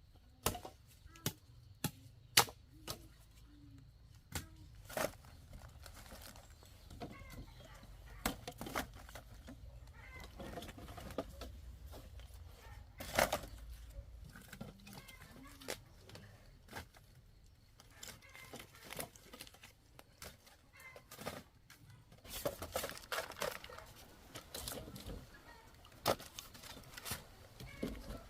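Irregular sharp knocks and snaps, one at a time and then in a quicker cluster near the end, with faint animal calls in between that are typical of farm fowl.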